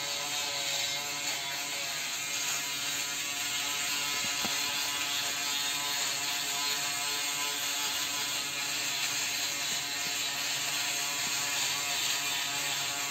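Braun Series 3 ProSkin 3010s electric foil shaver running steadily against the face, its motor buzz mixed with the rasp of cutting short stubble.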